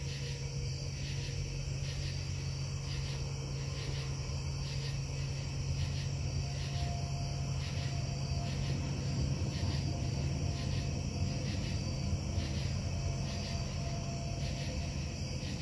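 Steady low industrial drone from a metal-casting plant, unchanging throughout, with a few faint steady tones over it. Crickets chirp in a steady pulse above the drone.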